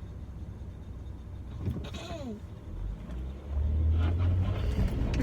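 Low rumble of a motor vehicle, growing louder and steadier about three and a half seconds in, with a short sound sliding down in pitch near two seconds.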